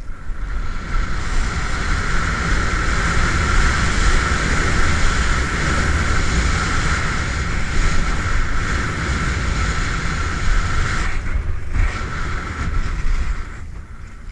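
Wind rushing over a skier's camera microphone, with a heavy rumble, and skis hissing and scraping over snow during a fast off-piste descent. The noise eases off near the end as the skier slows down.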